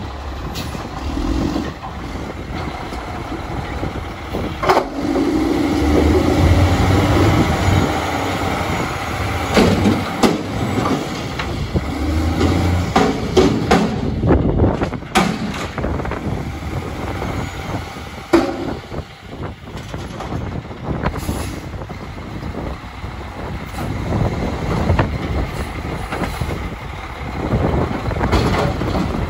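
Mack MR front-loader garbage truck with a Labrie Optimizer body running, its engine rumble overlaid by repeated metallic clanks and knocks scattered through.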